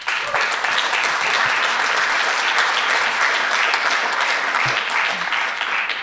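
Audience applauding, starting suddenly and fading out near the end.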